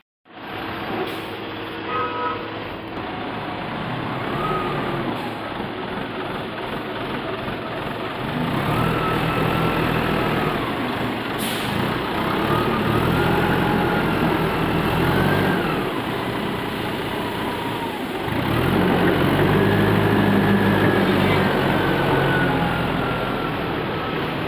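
Forklift engine running, revving up three times under load and settling back between, with a higher whine that rises and falls with each rev.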